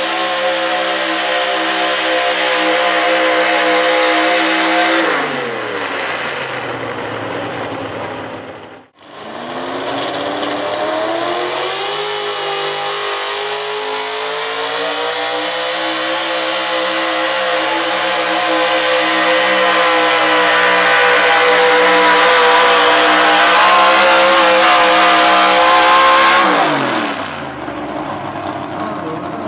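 Big-block gas V8 engines of Pro Street pulling trucks running hard under load while dragging a weight-transfer sled. The first engine falls off in pitch about five seconds in as its pull ends; after a sudden break, a second truck's engine pulls with its pitch slowly climbing, then drops away near the end as that pull ends.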